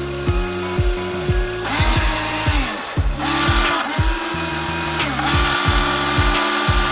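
Small electric gear motors of RC construction vehicles whining, starting and stopping every second or so and gliding in pitch as they spin up and down, with background music.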